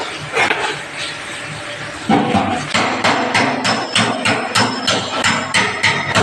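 Sharp metallic taps on a dented steel car body panel being worked back into shape with panel-beating tools. A few scattered knocks come first, then from about two seconds in an even run of taps, about three a second.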